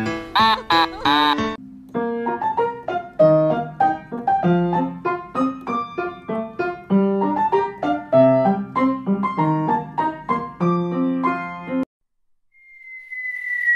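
Solo piano music, a run of separate notes, opening under a short high sound whose pitch wavers up and down. The piano stops near the end, and after a brief silence a single high tone glides slowly downward.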